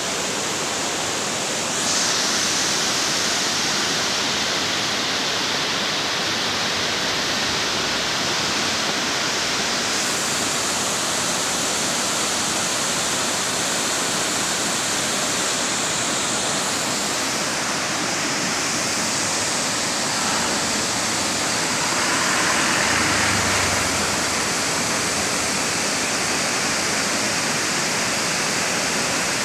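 Steady rush of Ravana Falls, a large multi-tiered waterfall, its water pouring down over rock ledges.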